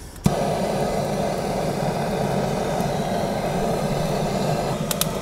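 Handheld gas torch held to lump charcoal and fire starters: a sharp click about a quarter second in, then the steady rushing hiss of the flame. A few sharp clicks near the end.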